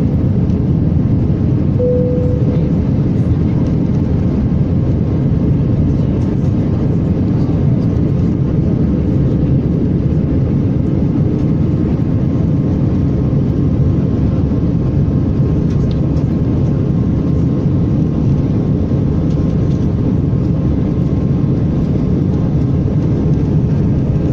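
Steady roar of engine and airflow heard inside a passenger airliner's cabin, even in level throughout, with a short single tone about two seconds in.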